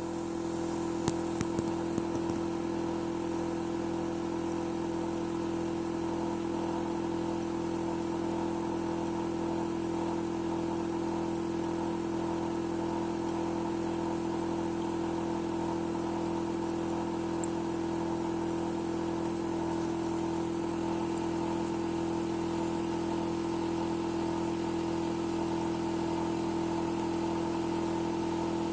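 Hitachi air-conditioner outdoor unit running with a steady, loud, humming drone: one strong low tone with several steadier tones around it, and a few light clicks between one and two seconds in. It is the abnormal noise that the owner finds too loud.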